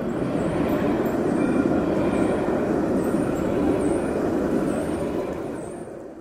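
A tram running along its rails, a steady low rumble that fades away near the end, with faint short high chirps above it.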